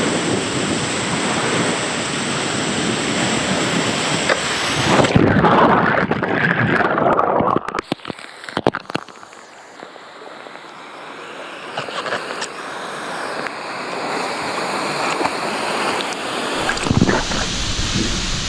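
Rushing water and the hiss of a rider's body sliding round a fibreglass water-slide bowl, rising to a louder surge of water about five seconds in. Near eight seconds it breaks into sharp knocks and splashes and goes much quieter as the rider drops into the landing pool, then water sloshes and builds slowly. Near the end comes steady wind noise on the microphone.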